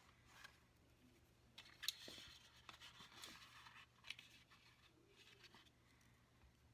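Near silence with a few faint clicks and scrapes of small tools being handled at a soldering bench, the sharpest click about two seconds in.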